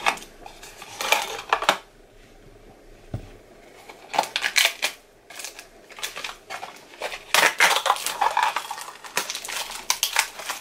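Plastic wrapping crinkling and rustling, with light clicks and clatters of a clear hard-plastic makeup organizer, as the organizer is unwrapped. The crinkles come in irregular spurts, sparse at first and busier in the second half.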